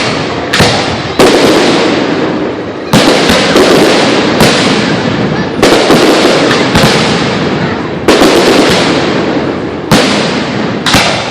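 Aerial fireworks display: shells bursting one after another, about ten sharp bangs, each fading out over a second or so before the next, the gaps ranging from half a second to about two seconds.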